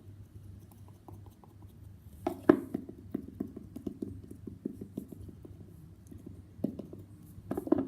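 Hands squeezing and pushing soft slime, giving an irregular run of small sticky clicks and squelches. The loudest comes about two and a half seconds in, with more clusters near the end.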